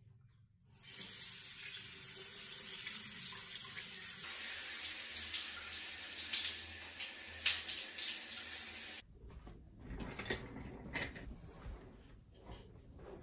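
A bathroom sink's mixer tap is turned on and water runs steadily into the basin; about four seconds in it gives way to a shower running over a hand. The water stops abruptly about nine seconds in, followed by a few light knocks and handling sounds.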